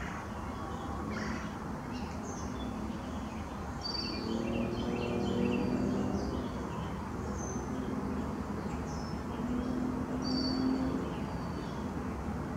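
Outdoor ambience: small birds chirping, with short high calls every few seconds over a steady low rumble. A low droning hum swells in the middle.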